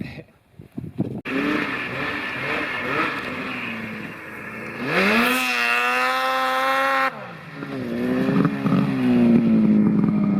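Snowmobile engine running and revving. It climbs to a high steady note, drops off abruptly about two-thirds of the way through, then revs up again near the end.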